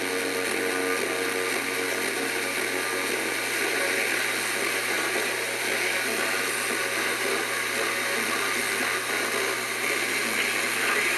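Steady hissing noise at an even level, with a constant low hum underneath and a few faint tones in the first second or two.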